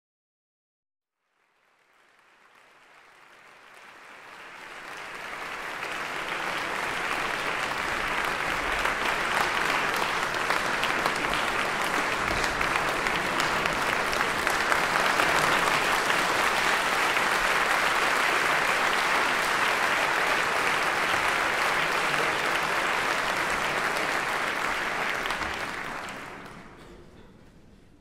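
Concert hall audience applauding, fading in over the first few seconds and fading out near the end.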